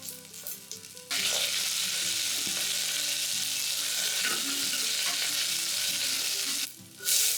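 Tempering sizzling loudly in hot oil in a pan: curry leaves, green chillies and garlic frying with spluttering mustard seeds. The sizzle starts suddenly about a second in, holds steady, breaks off briefly near the end and comes back louder.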